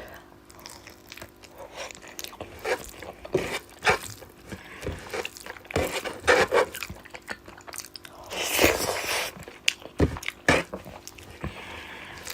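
Close-miked wet chewing and lip-smacking of someone eating fish curry with rice: irregular short smacks and squishes, with a longer louder wet stretch about two-thirds of the way through.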